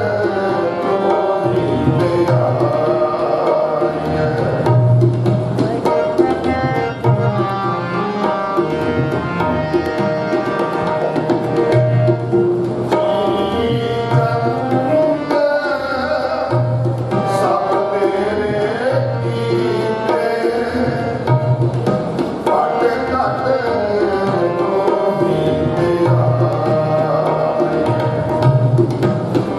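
Sikh kirtan: tabla drums keeping a steady beat under harmonium and a sung hymn.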